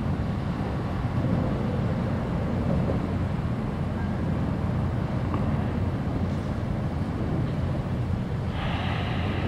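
Steady low rumble of distant engines with a hiss above it; a brighter hiss comes in near the end.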